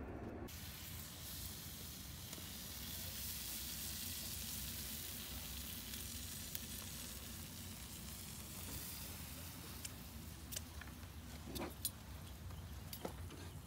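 Sauced meat sizzling on the grate of a portable propane grill, a steady hiss. A few light clicks come in the last few seconds.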